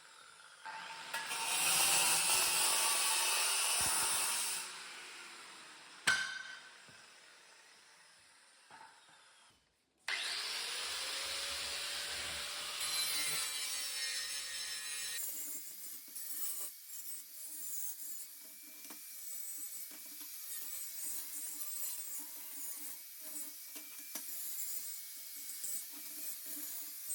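Angle grinder cutting steel plate. One loud cut, then the grinder winds down. A second or so later it is started again, its pitch rising as it spins up, for another loud cut. It then runs on more quietly, its load rising and falling as it works the edge.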